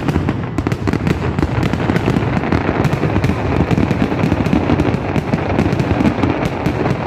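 Fireworks going off in a loud, continuous crackle of rapid, overlapping pops and bangs.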